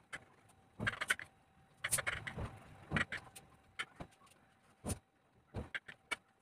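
Kitchen knife cutting through a sponge cake, the blade clicking and scraping against the plate with each stroke: a series of short, sharp knocks about once a second, some in quick pairs.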